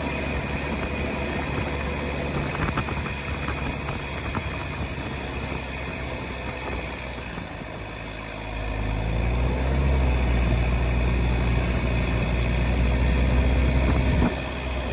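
Tucker Sno-Cat's Isuzu 4BD1T four-cylinder turbo diesel running steadily. About eight seconds in it grows louder and deeper as it works harder, then drops off suddenly near the end.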